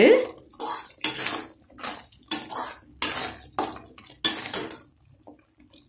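Slotted steel spatula stirring and scraping thick, ghee-rich ash gourd halwa in a stainless-steel kadai: a run of wet scraping strokes, about two a second, that stops about three-quarters of the way through. The halwa has reached its finished consistency.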